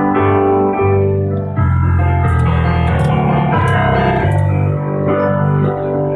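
Yamaha stage piano played live: slow, sustained piano chords that change every one to two seconds, with no voice over them.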